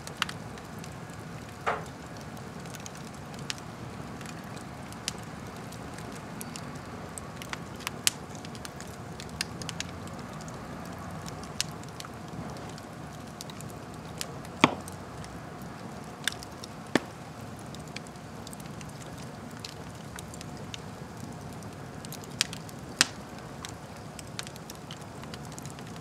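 Wood fire crackling in a fireplace: a steady low hiss of burning logs with irregular sharp pops and snaps, the loudest about 15 and 23 seconds in.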